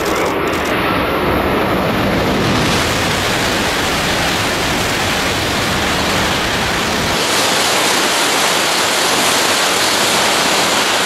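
Coupled E6 Komachi and E5 Hayabusa Shinkansen train passing at speed, about 320 km/h: a loud, steady rush of air and wheel noise that swells over the first two seconds. About seven seconds in, the deep rumble drops away and a higher hiss takes over.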